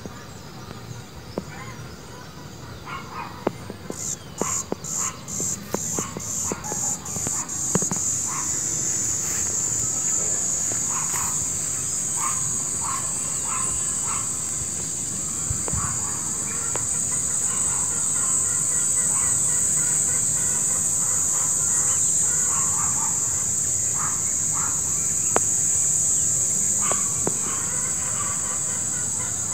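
Countryside ambience: a high-pitched insect buzz that comes in about four seconds in as a run of quick pulses, then holds steady, over scattered short bird calls.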